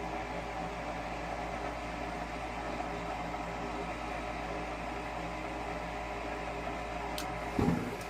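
Goodman 90% gas furnace's draft inducer motor running with a steady hum while the igniter heats, its pressure switch now closed after the hose was moved to the right port. A thin click about seven seconds in, then a short thump just before the end.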